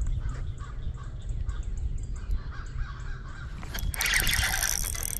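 Crows cawing repeatedly over a steady low wind rumble on the microphone. About four seconds in, there is loud, close rustling and whirring as the rod and spinning reel are handled.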